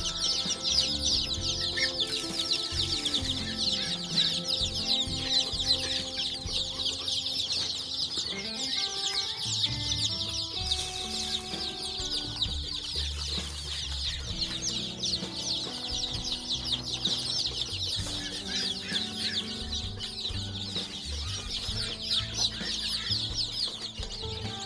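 A brooder of five-day-old local chicks peeping without a break, many high, quick chirps overlapping. Soft background music runs underneath.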